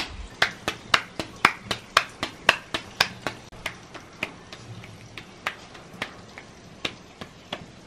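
Hands patting a ball of masa flat into a tortilla, slapping it from palm to palm: quick sharp slaps, about four a second, spacing out and getting softer in the second half.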